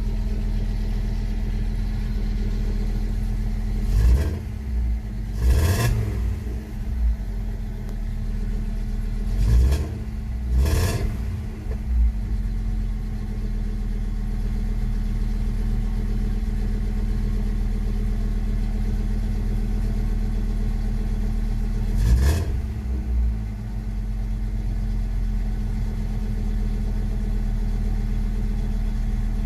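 Audi 100 C3's 2.3-litre NF inline-five engine idling steadily through a straight 55 mm sport exhaust pipe, with five short throttle blips: two about four to six seconds in, two around ten seconds, and one a little past twenty seconds.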